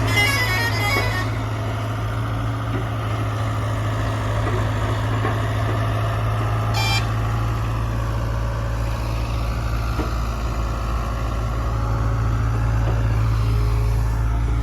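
Diesel engines of a JCB backhoe loader and a tractor running steadily, with a low, even drone. A few short high beeps sound at the very start and once more about seven seconds in.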